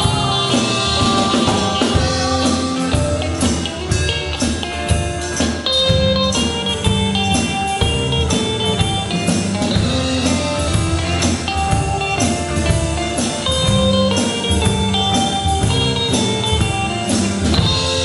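Live rock band playing: a drum kit keeping a steady beat under electric guitars and bass guitar, loud and continuous.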